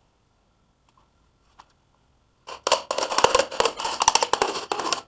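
A few faint ticks, then a fast, irregular run of sharp clicks that starts about halfway through and stops at the end.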